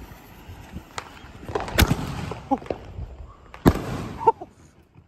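Two sharp knocks about two seconds apart, a smaller one near the end, and a few short pitched sounds between them.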